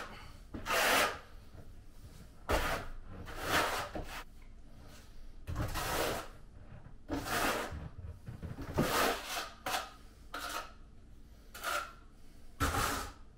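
About a dozen short, irregular scraping strokes from a hand tool working on tile or thinset during tile setting.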